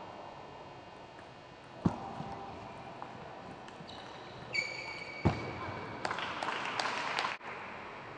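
Sharp clicks of a table-tennis ball being struck and bouncing: one loud click about two seconds in and another about five seconds in, with a brief high squeak just before the second. This is followed by a noisy stretch of quick clicks that cuts off suddenly.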